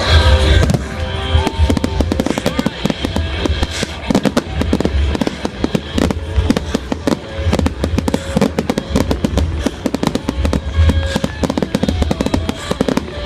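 Fireworks display: dense, rapid crackling and popping over a deep rumble of booms.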